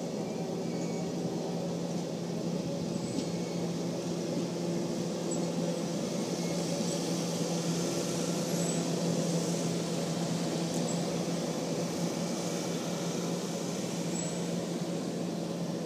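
Passenger cars of a long circus train rolling past at close range: steady noise of steel wheels on the rails, with a steady low hum.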